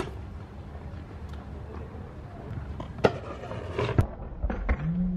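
BMX bike rolling on paving stones with a low tyre rumble, broken by sharp knocks from the bike about three seconds in and a cluster of them near the end as it is hopped off the ground for a trick.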